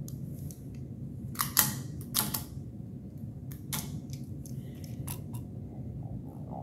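A handful of sharp clicks and clacks from Glock polymer pistol magazines and loose cartridges being handled and moved, the loudest about one and a half to two and a half seconds in.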